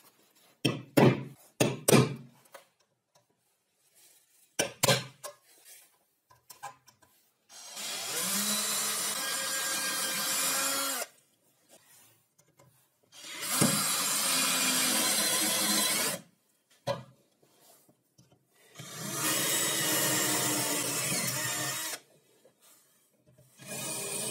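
Cordless drill boring holes through a thin steel ruler, running in three bursts of about three seconds each. A few sharp taps come before the drilling.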